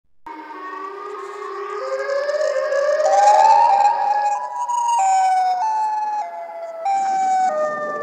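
A siren-like wail that climbs slowly in pitch over the first four seconds, then breaks into a series of stepped, falling notes. It is a sound effect laid over the pictures, not a real siren.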